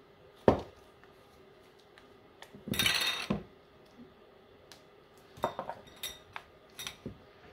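Set lotion bars being popped out of their molds and handled on a hard counter: a sharp knock about half a second in, a short scraping rub around three seconds in, then a few light clicks and taps.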